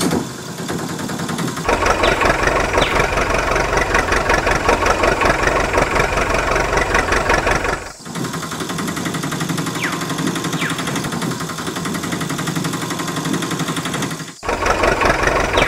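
Tractor engine running steadily, a sound effect laid over a toy tractor. It changes abruptly at each cut: fuller and louder for most of the first half and again near the end, thinner in between.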